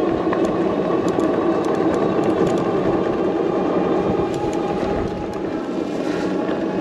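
Mokwheel Upland Plus fat-tire e-bike's rear hub motor whining steadily under full throttle, over tyre and road noise from a bumpy dirt road with a few small ticks from bumps.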